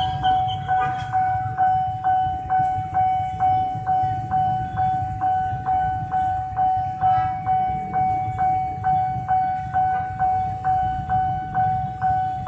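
Railway level-crossing warning bell ringing steadily at about two strikes a second over a constant tone, with a low rumble underneath.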